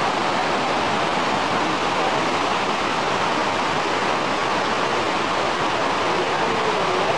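Rocky river rushing over rapids: a steady, even rush of water.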